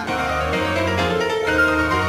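Background music: a lively melody of quick, short notes over a steady low bass line.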